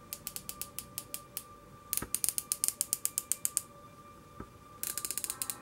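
Side adjustment turret of a VOMZ 6-24x50 AOE riflescope turned by hand, giving crisp detent clicks: a slow run of clicks, a faster run about two seconds in, and a quick burst near the end.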